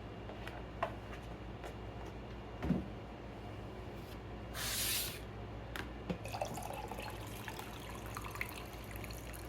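Kitchen sink tap turned on for about half a second, running water hissing, among a few light knocks and clicks. Small drips and clinks follow.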